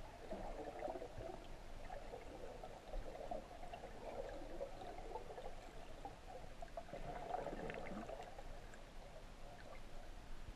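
Underwater water noise picked up by a GoPro inside its waterproof housing: a muffled, uneven gurgling with a few faint clicks.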